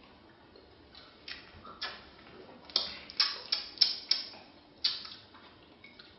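Mouth sounds after a shot of whisky: a string of short, sharp smacks and clicks, about a dozen, bunched from about a second in to about five seconds in and loudest in the middle.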